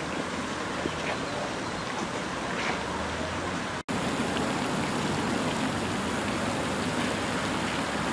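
Steady outdoor rushing noise of wind and open-air background, cut off for a split second about four seconds in.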